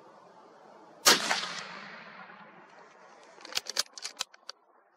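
Single hunting rifle shot about a second in, with a long echo fading away afterwards. Near the end, a quick run of sharp clicks.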